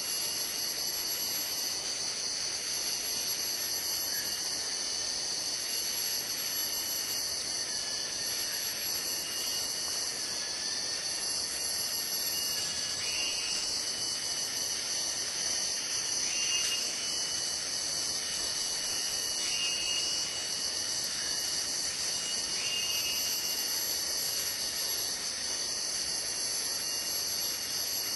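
Steady, high-pitched chorus of rainforest insects droning without a break. A few faint short chirps come in every few seconds over it.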